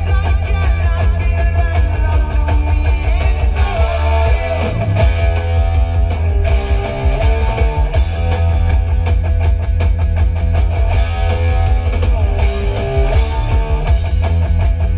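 Heavy rock music with loud guitar and a drum kit playing a steady beat, no vocals.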